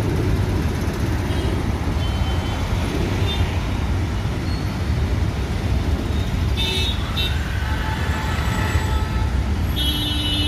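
Dense road traffic in a jam: a steady rumble of idling and crawling cars, buses and motorbikes. Short horn honks sound about seven seconds in, and a long horn blast starts near the end.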